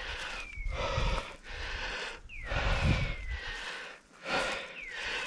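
Heavy breathing close to the microphone in rough bursts about once a second, with two low thumps, and a short falling whistle repeating about every two seconds.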